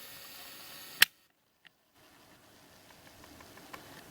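A single sharp click about a second in, then about a second of dead silence, then faint room noise with a few light ticks.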